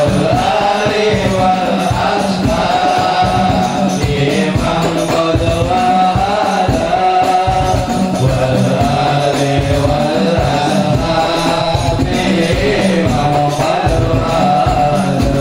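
Sholawat chanted to a hadroh ensemble: a wavering sung melody over continuous, rhythmic frame-drum playing with jingling.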